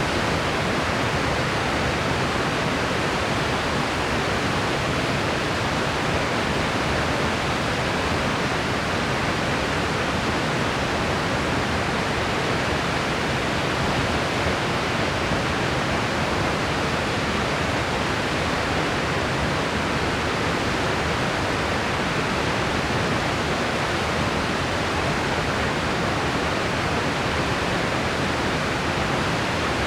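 Steady, unchanging white-noise hiss spread evenly from low to high pitches, with nothing else heard.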